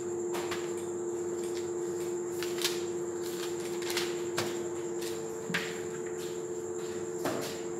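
Light knocks and rubbing from a whiteboard being wiped with a duster, over a steady low electrical hum. A few scattered clicks are heard.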